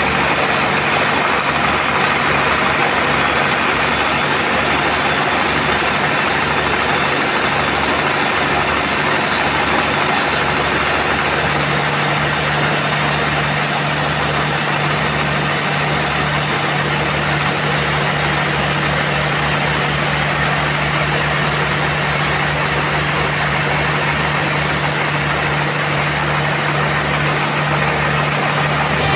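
Sawmill machinery running steadily, a continuous mechanical drone with a low hum. About a third of the way in, the hum grows stronger and the high hiss drops away.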